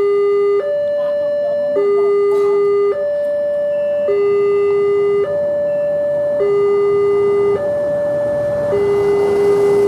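Railway level-crossing warning alarm sounding an electronic two-tone signal, switching between a lower and a higher tone a little more than once a second: the warning that the crossing is closing for a train. A rushing noise rises under it near the end.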